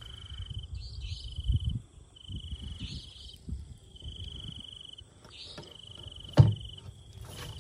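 An insect trilling at a steady high pitch in repeated stretches about a second long with short pauses, over low rustling from handling. A single sharp knock sounds about six seconds in.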